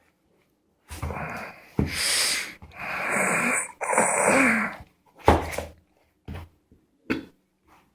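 Packing tape and wrapping being pulled and torn off a parcel in several noisy pulls of about a second each, followed by a sharp click and a few small knocks.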